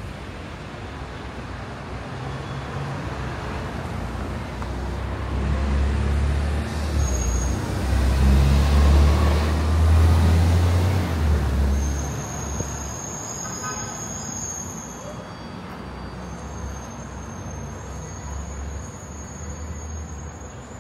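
Road traffic with a heavy vehicle passing close by. Its low rumble builds, is loudest about nine to eleven seconds in, then fades. A thin high squeal follows in two stretches.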